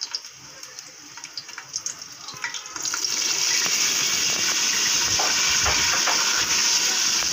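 Whole spices (bay leaves, cinnamon, cardamom, cloves) dropped into hot cooking oil in a pot: scattered crackles and pops at first, then a loud, steady sizzle from about three seconds in as the oil fries them.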